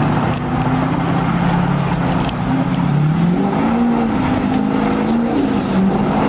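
A vehicle's engine running with a steady hum whose pitch drops and then rises again around the middle, under a rushing noise of driving.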